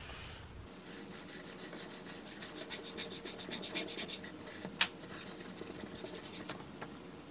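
Cloth rag rubbing gel stain into a plywood panel in quick back-and-forth strokes, starting under a second in. A single sharp click comes about five seconds in.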